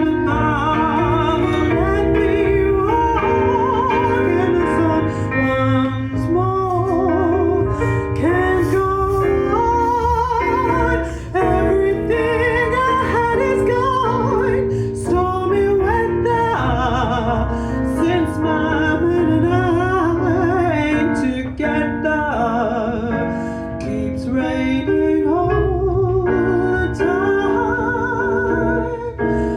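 Live band playing a slow jazz standard: a lead melody with wide vibrato over held piano and guitar chords and a steady bass line.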